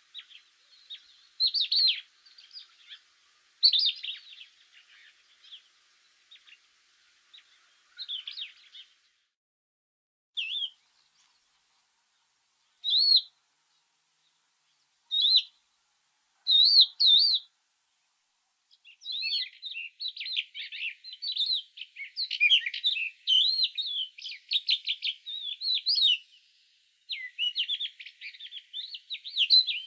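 Songbirds calling: scattered chirps and separate whistled notes, then, from about two-thirds of the way in, a fast, continuous warbling song.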